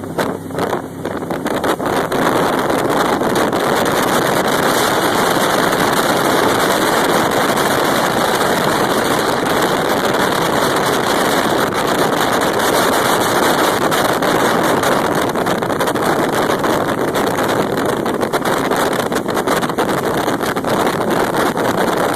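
Jet boat running at speed: a loud, steady rush of engine, water and wind noise, with wind buffeting the microphone, a little uneven for the first two seconds.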